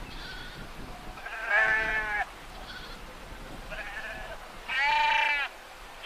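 A large flock of sheep bleating: two loud, long, wavering bleats, about one and a half seconds and five seconds in, over fainter bleats from the rest of the flock.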